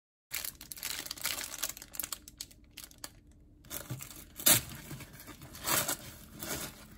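Crinkling and rustling handling sounds with scattered crackles, the loudest about four and a half seconds in and again near six seconds.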